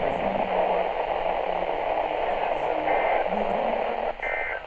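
Weather radio receiver hissing with steady static between broadcasts. There are short high beeps about three and four seconds in, and the static drops away near the end.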